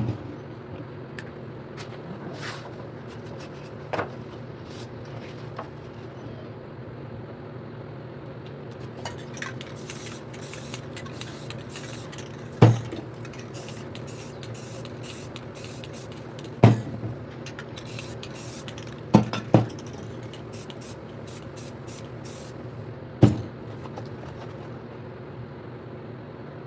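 Aerosol spray paint cans hissing in many short bursts, with several sharp knocks, the loudest sounds, over a steady low hum.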